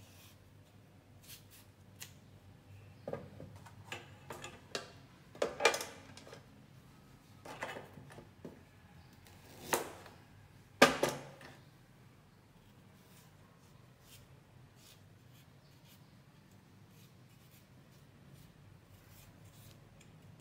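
A kitchen knife cutting and handling ginger on a plastic cutting board: a string of irregular knocks and short scrapes through the first half, the loudest a sharp knock about halfway through.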